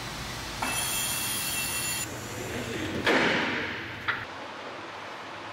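Pressurised air hissing in two bursts: a steady high hiss with faint whistling tones for about a second and a half, then a shorter whoosh that fades away and ends with a click.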